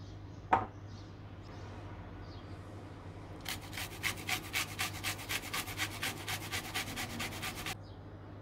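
A sharp click about half a second in, then a fast, even run of scraping strokes, about eight a second, lasting roughly four seconds, from a kitchen utensil worked by hand. Birds chirp faintly in the background.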